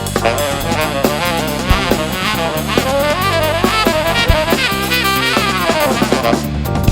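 Soul-jazz band playing an instrumental passage: saxophone and trumpet over drum kit, electric bass and keyboards, with quick melodic runs.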